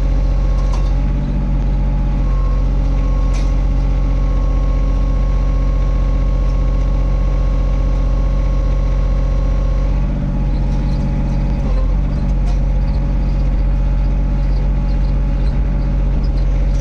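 Mini excavator's diesel engine running steadily, with a steady whine over it that drops out about ten seconds in.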